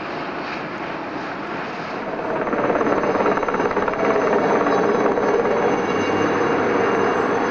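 Two steam locomotives double-heading a train, their exhausts chuffing rapidly while working under steam, growing louder about two seconds in.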